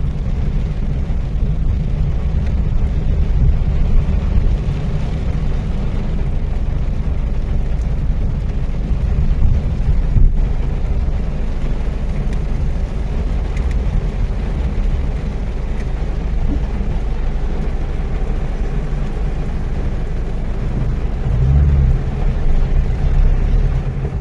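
Steady low rumble inside a car driving through heavy rain: tyre and road noise on the wet street mixed with rain on the car, with a brief louder rumble near the end.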